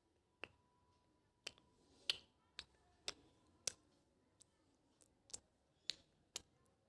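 Tongue clicks: about ten faint, sharp single clicks, spaced irregularly.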